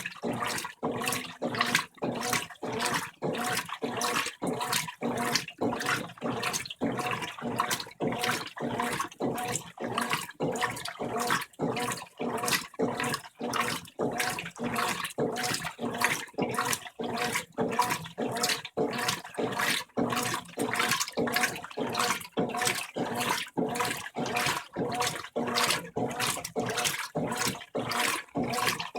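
Brastemp 15 kg top-loading washing machine in its rinse cycle at medium water level: the agitator swishes the water back and forth in an even rhythm of about two strokes a second.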